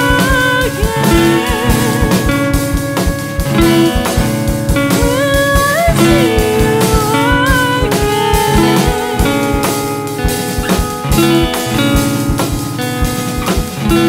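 Background music: a lead guitar playing bending, wavering notes over a repeating bass line and a steady drum beat.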